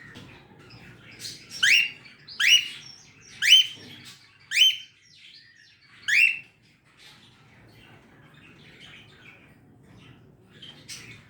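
Cockatiel calling loudly: five sharp upward-sweeping screeches in about five seconds, then softer scattered chirps.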